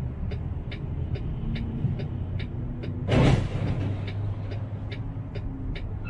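A vehicle engine idling with a steady low rumble, an even ticking about two and a half times a second, and a short, loud hiss about three seconds in.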